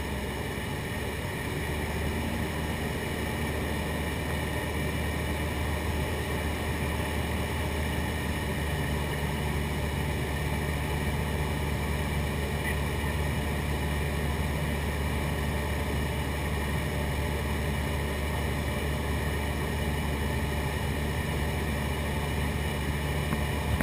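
Steady drone of a light aircraft's piston engine and propeller, heard inside the cabin of a high-wing single-engine plane in flight. The low engine note firms up a couple of seconds in, and a second low tone joins about a third of the way through.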